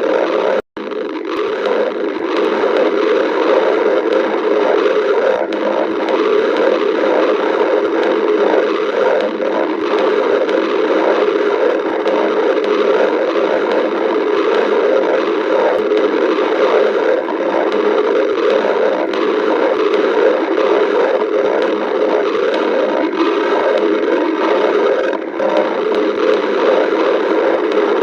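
Stomach growling: a steady, loud churning rumble from the belly that goes on without a break, except for a brief cut-out just under a second in.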